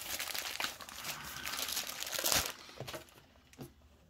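Packaging crinkling and crackling as a parcel is handled and opened, dying down to a few faint clicks after about two and a half seconds.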